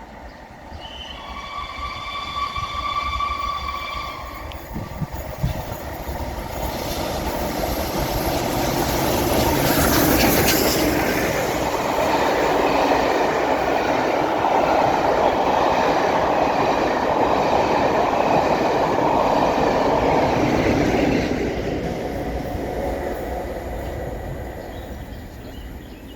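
LNER A1 4-6-2 steam locomotive 60163 'Tornado' and its train passing at speed. The rumble of the train builds, is loudest for about ten seconds, then fades, with a brief hiss about ten seconds in. A steady high tone sounds for about three seconds near the start.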